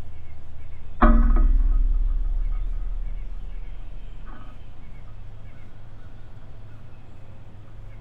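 A sudden knock about a second in, with a low metallic ring that fades away over a few seconds, as a tufted titmouse lands on the metal perch arm of the feeder pole. A steady low hum lies underneath.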